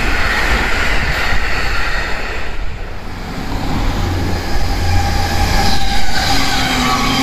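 A commuter electric train finishing its pass, then an E657 series limited express electric train approaching and passing at high speed. Its wheel and rail noise builds to its loudest about six seconds in, with a steady whine as the cars go by.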